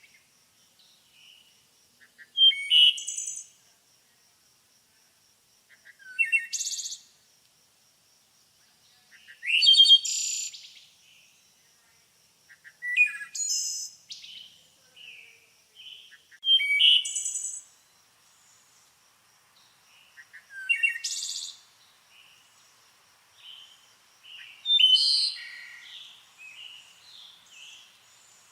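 A songbird singing the same short phrase over and over, about every four seconds, with softer chirps between the phrases. A faint, steady, high pulsing note runs underneath throughout.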